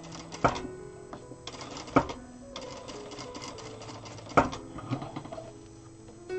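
Zoje single-needle lockstitch industrial sewing machine stitching in short runs of rapid ticking, with a few sharp loud clicks, over soft background guitar music.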